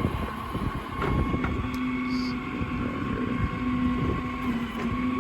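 Truck-mounted hydraulic crane in operation: a steady whine from the hydraulic system over the running engine's rumble, swelling and easing as the crane is worked, with a few light clicks.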